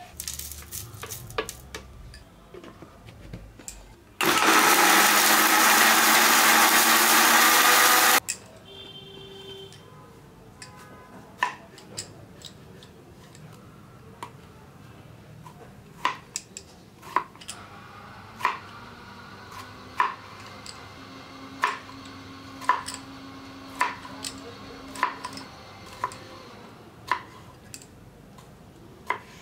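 An electric mixer grinder runs for about four seconds, grinding seeds in its jar, with light knocks of the jar being handled before it. Later a kitchen knife chops tomatoes on a wooden board in a string of sharp knocks.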